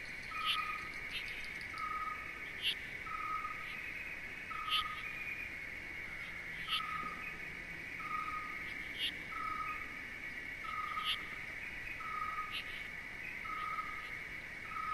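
Outdoor ambience of a steady, high insect drone, with a short call of one even pitch repeating about once a second and a sharp tick every two seconds or so.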